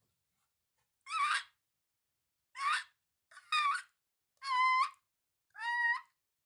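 An animal's high-pitched squeaky calls, five in a row about a second apart, starting about a second in. The later calls are steadier and whistle-like.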